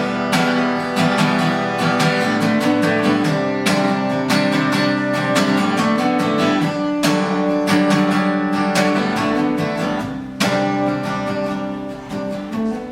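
Acoustic guitar strummed in steady strokes in an instrumental passage of a song, without singing; it gets quieter near the end.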